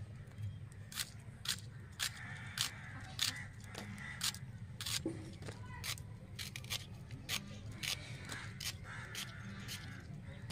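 Taro stalks being chopped on a boti, a fixed curved iron blade: a string of crisp, sharp cuts at an uneven pace of about two a second.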